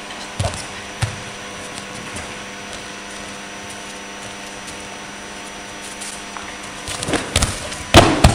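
Judoka landing on tatami mats during a yoko guruma sacrifice throw: two dull thumps about half a second and a second in over a steady background hum, then a quick run of thumps and a loud slam as both bodies hit the mat near the end.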